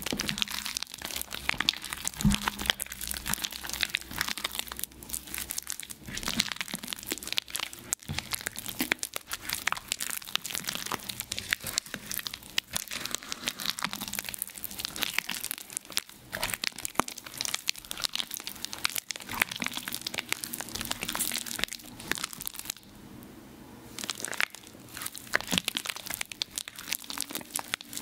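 Water-soaked reformed gym chalk being crushed: dense, continuous crackling and crunching, with a short pause about 23 seconds in.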